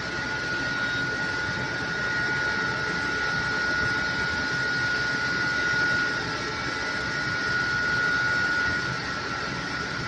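Steady hiss and rush of a high-pressure water jet from a fire-fighting robot's water cannon, with a steady high whine running under it. The level swells a little and eases twice as the jet is swung.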